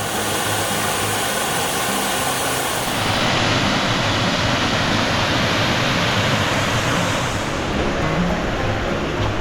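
A steady rushing noise that changes abruptly twice, with quiet background music underneath.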